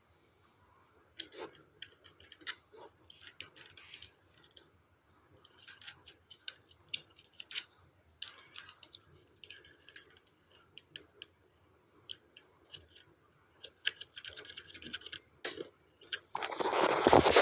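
Computer keyboard keys clicking in irregular spurts, some quick runs of keystrokes and some single taps. Near the end, a louder noisy rush lasting about a second.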